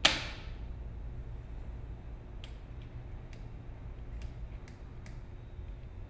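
A car door handle mechanism snaps with one sharp click that rings briefly, followed by a few faint ticks as it is handled, over a steady low hum.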